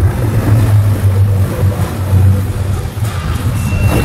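Bigfoot monster truck's engine revving, a loud low rumble that swells and dips as the truck drives.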